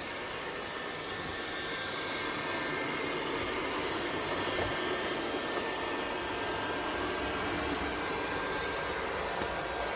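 Robot vacuum cleaner running steadily, its motor giving an even whirring hiss with a thin, steady high whine over it.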